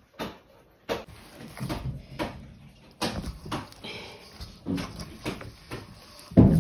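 Hand mixing and kneading spinach-and-flour dough in a steel bowl: irregular soft knocks and rubbing of hand and dough against the bowl, with the loudest thump near the end.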